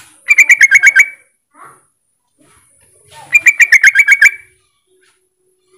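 Yellow-vented bulbul (trucukan) calling: two bursts of rapid, evenly spaced chattering notes about three seconds apart. This is the bulbul's call to rivals, used to lure other bulbuls into calling back.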